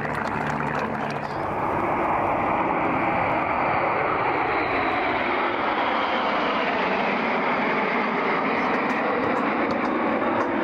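Formation of eight BAe Hawk T1 jets, Rolls-Royce Turbomeca Adour turbofans, flying past. It swells to a steady roar about a second in, with a faint high whine that slowly falls in pitch.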